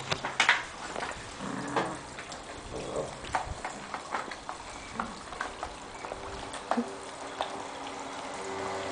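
Two small dogs, a Chihuahua and a fluffy companion, sniffing and snuffling at each other close up, with scattered light clicks as they shift about on the tile floor. A low steady hum comes in about two-thirds of the way through.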